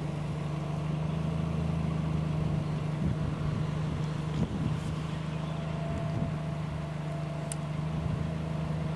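Car engine idling: a steady low hum with no change in speed.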